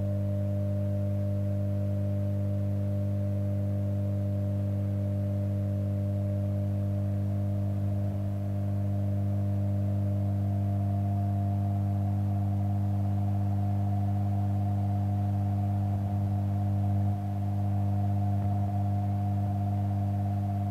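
Droning music of several steady low tones held without a break, with a higher tone slowly rising in pitch through it.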